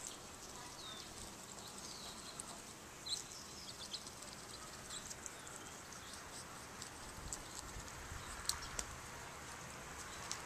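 Faint outdoor ambience: small birds chirping, high and brief, several times in the first few seconds, a few sharp clicks later on, and a soft hiss that grows louder near the end.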